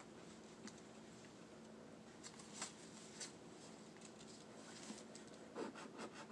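Scratch-off lottery ticket being scratched on a tabletop: a few faint scrapes and light clicks, then rapid scratching strokes start near the end.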